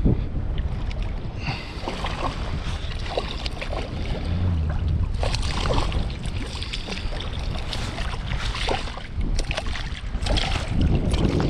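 Wind buffeting the microphone over water around a small boat, with scattered knocks and clicks.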